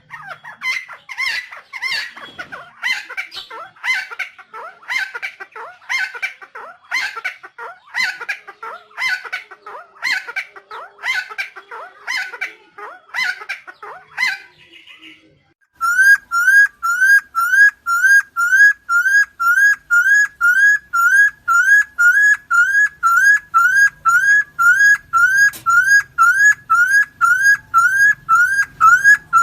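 Helmeted friarbird (Philemon buceroides) calling: harsh, scratchy notes repeated about twice a second for roughly fifteen seconds. After a short gap comes a loud rising whistled note repeated about twice a second, as regular as a loop.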